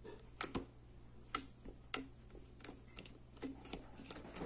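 Homemade slime being squeezed and pressed by hand, giving short, sharp clicking pops as trapped air bursts, irregular and about two a second, the loudest about half a second in.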